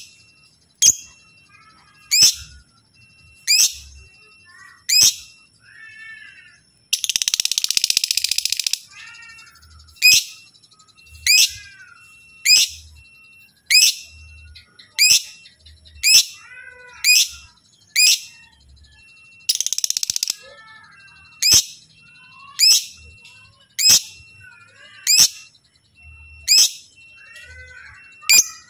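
Lovebird calling: loud, sharp, high-pitched chirps that drop in pitch, about one every second and a quarter, with quieter warbling chatter between them. Twice, about a quarter and two-thirds of the way through, it breaks into a harsh, rapid chattering trill lasting one to two seconds.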